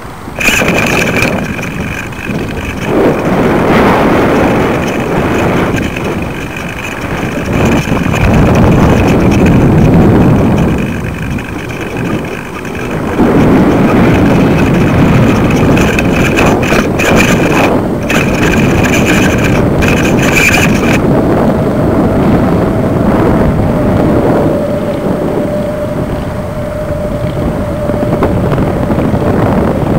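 Wind buffeting the microphone of a kite-lifted camera rig, swelling and easing in gusts. Crackling and a thin high whine run through the first two-thirds, and a faint steady hum sets in after that.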